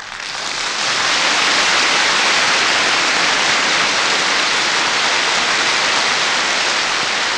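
Studio audience applauding at the end of a symphony performance, heard on a 1950 radio broadcast recording. The applause swells over the first second and then holds steady.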